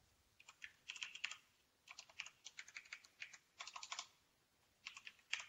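Computer keyboard being typed on: quiet, sharp keystrokes in about five short runs with brief pauses between them.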